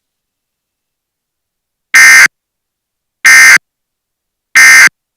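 Emergency Alert System SAME digital data tones: three identical harsh, buzzy bursts, each about a third of a second long and about a second and a half apart, starting about two seconds in. They are short enough to be the End of Message code that closes a weather radio warning, not the longer header.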